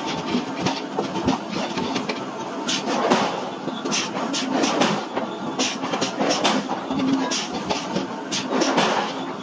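Heavy forging-plant machinery running with a steady mechanical clatter, mixed with light metallic knocks and clicks.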